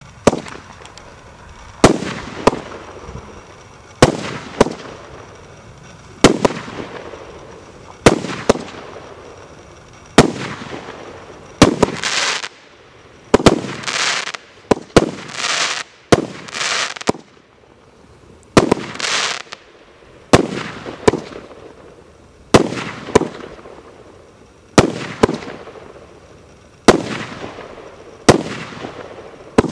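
A multi-shot consumer fireworks cake (battery) firing shot after shot. Each shot is a sharp launch bang followed about half a second later by the bang of the shell bursting, a shot roughly every two seconds, each bang trailing off in echo. In the middle stretch several shots end in loud, short crackling hisses.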